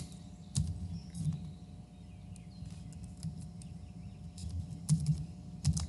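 Quiet room tone with a low steady hum, broken by a few scattered computer-keyboard clicks, which come closer together near the end.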